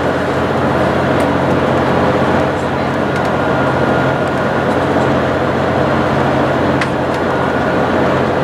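Inside the cabin of an HC85 hybrid diesel train at speed: a steady running rumble with a low, even hum, a faint high whine and a couple of light ticks.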